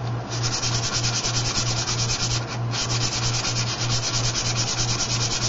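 Propeller blade being hand-sanded with fine sandpaper in quick back-and-forth rubbing strokes, with a short pause about two and a half seconds in. The heavy blade is being sanded down to balance the prop.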